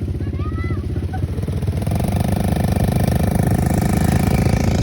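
ATV engine running steadily, then growing louder and fuller about two seconds in as the throttle is opened.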